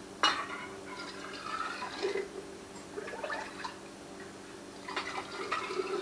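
Broth ladled through a metal canning funnel into a glass mason jar: a sharp metal clink of the ladle about a quarter second in, then liquid pouring and splashing into the jar, with more scoops following.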